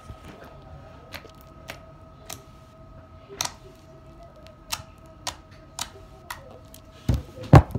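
Regular ticking, a little under two ticks a second, over a steady electric hum, with a louder knock near the end.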